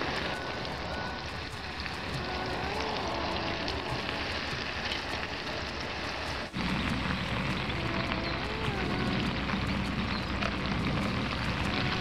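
Wood-gas camping stove burning hard, a steady crackling hiss of small sharp pops. About six and a half seconds in the sound breaks off and resumes louder and deeper, with more low rumble.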